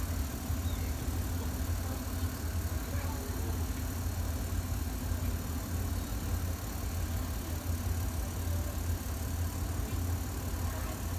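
GEK-class diesel-electric locomotive idling steadily at a stand, a constant low engine drone.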